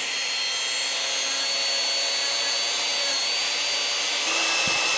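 Dremel rotary tool running at high speed with a cotton buffing bit, polishing a metal hold-down clip: a steady high whine whose tone changes abruptly about four seconds in.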